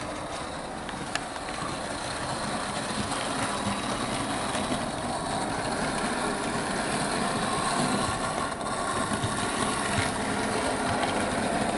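Model Class 37 locomotive running along the track pulling a heavy track cleaning wagon: a steady motor hum and wheel noise, growing slowly louder. The loco is running slowly on dirty track.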